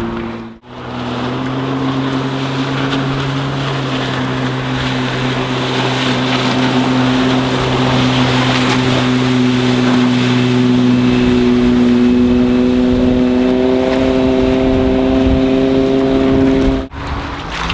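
Volvo Penta 4.3-litre V6 sterndrive engine of a speedboat running hard at planing speed, with the hiss of water and wind. The engine note holds steady and climbs a little in the last few seconds. The sound cuts out briefly about half a second in and again near the end.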